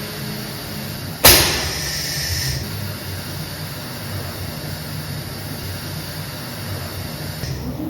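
Semi-automatic SMT stencil printer at work: a steady low machine hum, broken about a second in by a sudden loud hiss that lasts about a second and a half.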